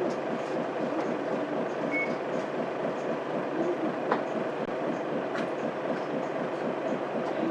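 Mitsubishi Fuso Aerostar bus's 6M70 inline-six diesel idling steadily while the bus stands at a stop, heard inside the cabin, with a few faint clicks and a brief high beep about two seconds in.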